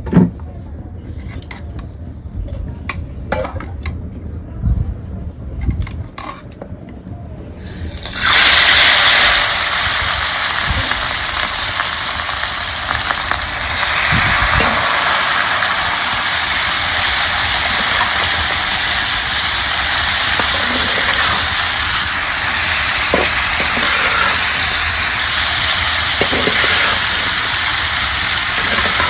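A few knocks of cookware being handled, then about eight seconds in chicken pieces go into hot oil with a sudden loud sizzle that carries on steadily as the meat fries.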